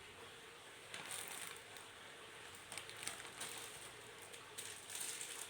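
Faint clicks and scraping as wireless microphone receiver gear is handled, its antennas being moved and set.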